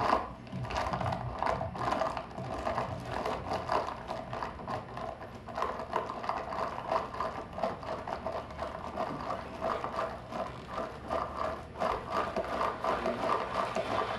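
Experimental film score: a dense, rapid clicking and rattling texture, like a small mechanism, over a steady midrange tone.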